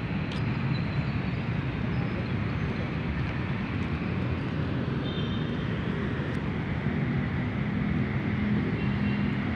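Steady low rumble of city traffic, with a faint engine hum coming up near the end.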